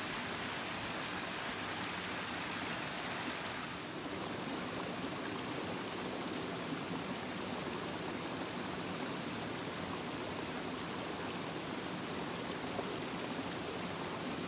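Small mountain creek running over rocks, a steady rush of water, with a brief dip about four seconds in.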